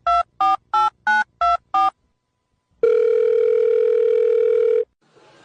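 Touch-tone phone keypad dialing: six quick two-note beeps, about three a second. After a short pause comes a single steady ringing tone on the line, about two seconds long, the ringback of the call going through.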